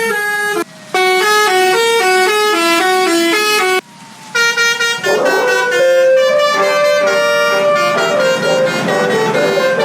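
A bus 'telolet' horn, a multi-tone air horn, playing a stepped melody of sustained notes that breaks off briefly twice in the first few seconds. From about halfway a rushing noise rises under the horn notes.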